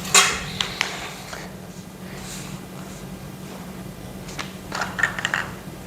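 Steel greenhouse frame tubes and connectors clinking and knocking as they are handled and fitted together: a sharp knock just after the start, a few light clicks, then a run of clicks near the end, over a steady low hum.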